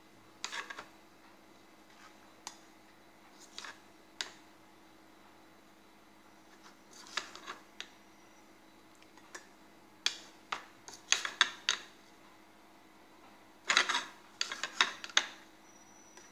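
Spoons clinking and scraping against a ceramic mug as ground bread crumbs are spooned in: scattered short clusters of light taps, busiest in the second half.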